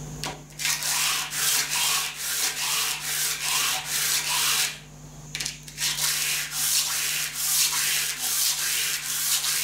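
Small steel block rubbed back and forth by hand on an abrasive sheet on a flat table, about two strokes a second, with a pause of about a second halfway through. This is hand-lapping a face flat in place of a surface grinder.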